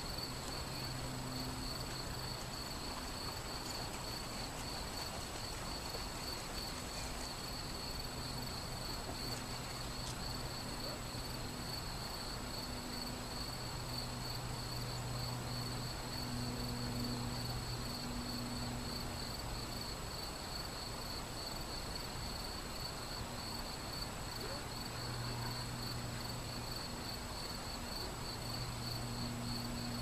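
Shallow river flowing over stony riffles, a steady hiss of running water, with crickets chirring constantly above it in a fast pulsing trill. A low hum fades in and out in the background.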